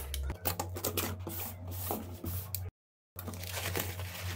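Cardboard shipping box being opened by hand: a run of quick scrapes, taps and cardboard handling, then, after the sound cuts out briefly about two-thirds of the way in, crumpled kraft-paper packing rustling as it is pulled out.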